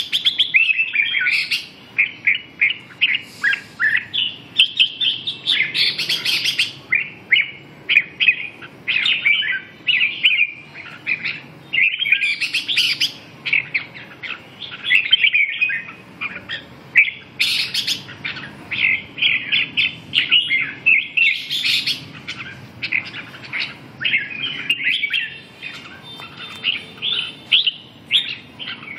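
Caged red-whiskered bulbuls singing: runs of rapid, bright chirps and short warbled phrases, broken by brief pauses.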